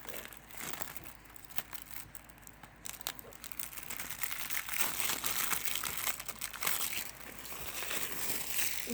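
Plastic shrink wrap crinkling as a Blu-ray case is unwrapped by hand: irregular crackles that grow louder about halfway through.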